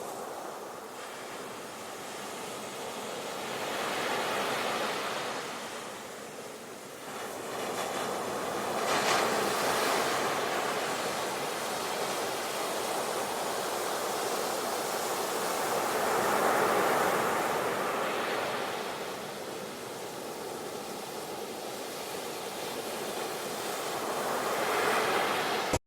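Sea waves breaking and washing on the shore, the surf swelling and ebbing in slow surges every several seconds.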